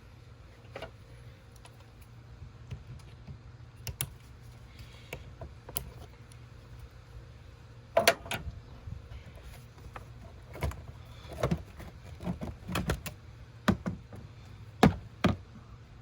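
Irregular clicks, rattles and knocks of air intake parts being pried loose and handled in the engine bay, with the loudest knocks about eight seconds in and twice more near the end.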